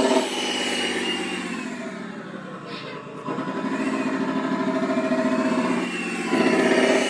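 Tatra 813 air-cooled V12 diesel engine sound played back by an ESP32 sound controller through a model RC truck's speaker. It drops back from high revs, then revs up again about three seconds in and once more near the end. A high-pitched whine from the engine's cooling fan rises and falls with the revs.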